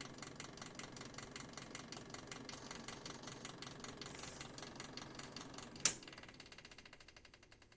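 Small electric motor, most likely the space heater's fan, running with a rapid, even ticking rattle. A sharp click comes about six seconds in, after which the ticking fades away as it winds down.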